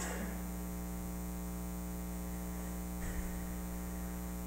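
Steady electrical mains hum with faint hiss from the sound system, plus two faint soft rustles, one at the start and one about three seconds in.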